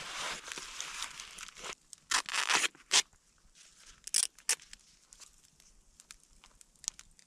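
Handling of a punctured Exped inflatable sleeping pad: a steady hiss for about the first second and a half, then several short, sharp rustling and tearing sounds.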